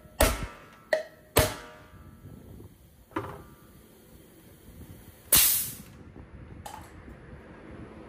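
Metal tools clinking against a bare engine, with four or five sharp ringing strikes in the first few seconds. About five seconds in comes a short, loud burst of compressed-air hiss from the leak-down test air line, then a smaller one a second later.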